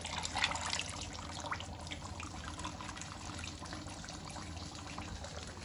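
Leftover mutton stock from a pressure cooker being poured into a pot of mutton curry, splashing and trickling, with a few light clicks in the first second and a half.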